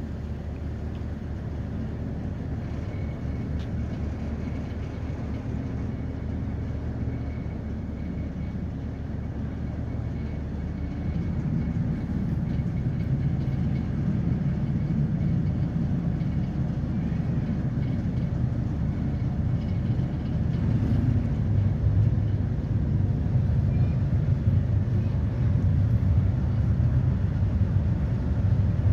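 Excursion boat's engine running with a steady low rumble as the boat comes in to dock, growing louder about halfway through and again near the end.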